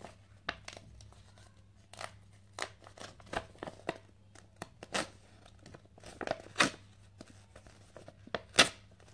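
Paper tearing in short, irregular rips as the perforated side edge strips of a sealed PIN mailer are pulled off by hand, with the loudest rip near the end.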